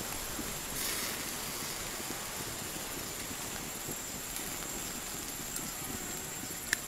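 Open wood-and-charcoal fire hissing and crackling steadily under chicken wings grilling on skewers, with a brief swell of hiss about a second in and one sharp pop near the end.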